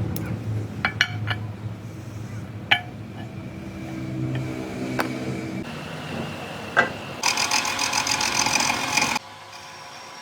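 Metalworking shop sounds in short cuts: a machine running with a low hum and several sharp metal clinks, then about two seconds of a harsh, high-pitched metallic noise that cuts off suddenly.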